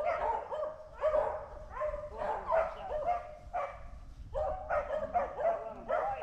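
Beagles barking and yelping in short calls, about two a second.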